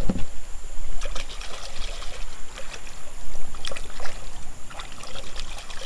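Water splashing and swishing as a hand scrubs a small plastic toy in a shallow river, in short irregular splashes over a steady wash of water.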